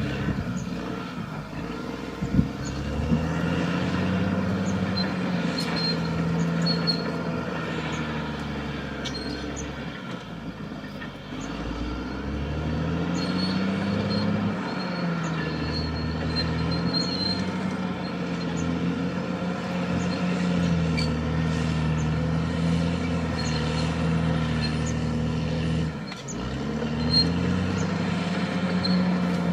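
Caterpillar D6R XL bulldozer's diesel engine working under load, its note sagging and climbing back up several times as the blade takes and sheds dirt. Faint high clicks run through it.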